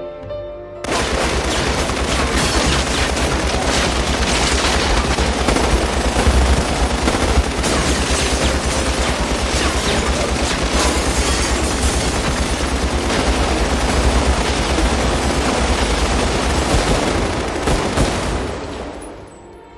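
Several submachine guns firing long automatic bursts together, a dense unbroken fusillade that starts abruptly about a second in and fades away near the end.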